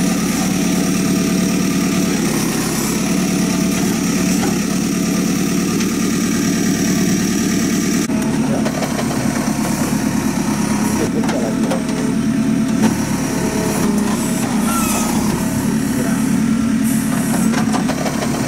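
JCB 3CX backhoe loader's diesel engine running steadily while the backhoe digs soil, with a thin steady high whine over it. About eight seconds in the sound changes and scattered knocks and clunks follow, one sharper about two-thirds of the way through.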